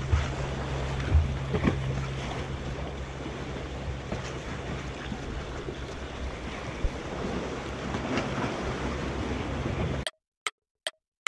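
A fishing boat's engine running steadily with a low hum, over the wash of waves. About ten seconds in the sound drops to near silence, broken by a few short ticks.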